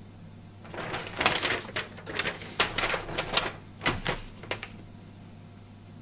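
A paper instruction leaflet rustling and crackling as it is unfolded and handled: a string of irregular crinkles from about a second in until nearly five seconds, over a steady low hum.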